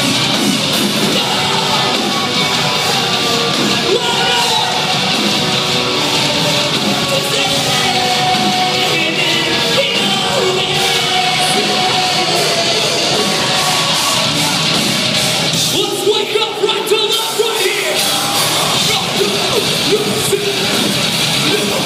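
Metalcore band playing live in a large hall: distorted electric guitars and drums with yelled vocals. About three-quarters of the way through, the bass and drums drop out for a moment before the full band comes back in.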